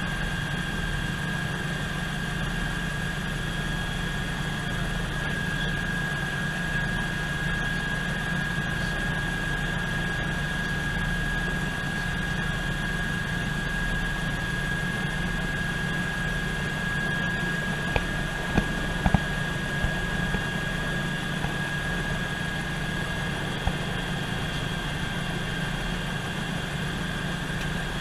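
Eurocopter EC120 Colibri helicopter running on the ground with its rotor turning, heard from inside the cabin: a steady turbine whine over an even low rotor drone. A few light clicks come about eighteen to twenty seconds in.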